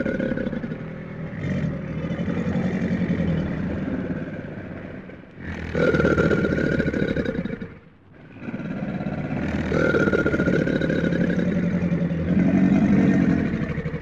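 Crocodile growling: long, low, rattling rumbles in three stretches, with short breaks about five and eight seconds in.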